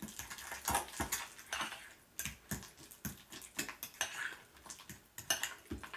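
Metal fork scraping and clinking against a glass mixing bowl while stirring cream cheese and blueberries together, in short, uneven strokes about two a second.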